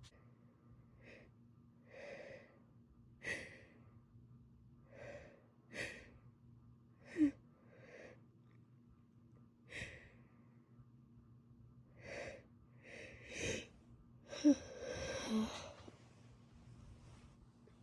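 A woman with a head cold breathing and sniffling through a congested nose: short breaths and sniffs every second or two, a small catching gasp about seven seconds in, and a longer shaky gasp near the end, a sneeze building up without coming.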